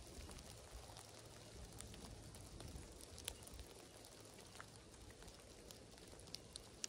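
Faint light rain: a low steady hiss with scattered drops ticking, one sharper drop about three seconds in and another near the end.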